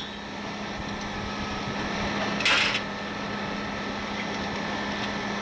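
Steady hiss with a low, even hum underneath, and a short burst of hiss about two and a half seconds in.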